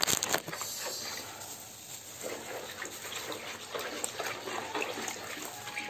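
A spoon stirring a bowl of sugary water with lumps of margarine and lard, the liquid swishing steadily, with a few light clicks of the spoon against the plastic bowl. This stirring dissolves the sugar and salt.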